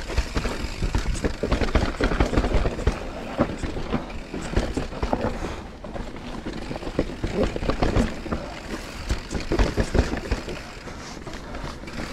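Mountain bike riding over a rough trail: a dense, irregular clatter of knocks and rattles over a low rumble.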